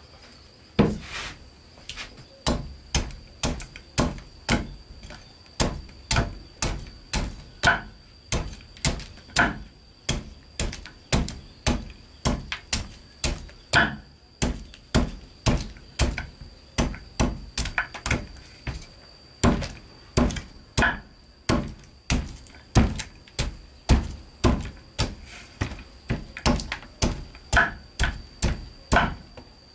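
A large knife chopping through a red-fleshed root onto a wooden chopping board: a steady series of sharp chops, about two a second, each blow slicing off a chip.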